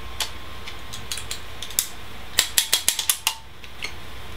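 Sharp metallic clicks from an Empire Resurrection Autococker paintball marker as its action is worked by hand: a few single clicks, then a quick run of about eight around the middle.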